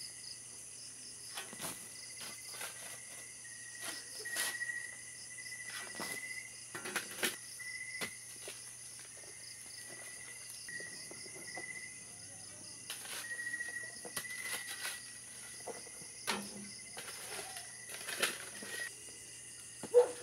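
Shovel digging into soil and stones, with scraping, knocking strokes every second or two. A steady chorus of crickets chirps throughout.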